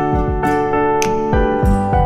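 Background music: sustained keyboard chords over a steady beat of soft kick drum and crisp percussion hits.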